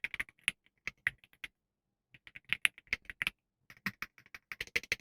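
Typing on an E-Yooso Z68 mechanical keyboard: three quick runs of keystrokes, broken by short pauses at about a second and a half and just after three seconds.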